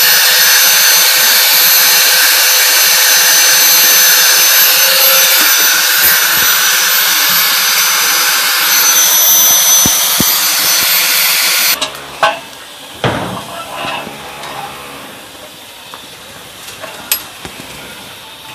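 A handheld power tool's motor running steadily at full speed with a high whine, stopping abruptly about twelve seconds in; a few light knocks and clicks follow.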